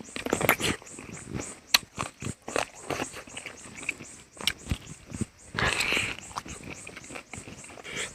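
A person eating chicken curry and rice close to the microphone: irregular wet chewing, lip-smacking and clicking mouth sounds, with a longer slurping or sucking sound about six seconds in.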